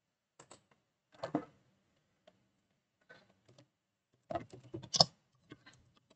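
Computer keyboard being typed on in several short runs of keystrokes, the loudest near the end.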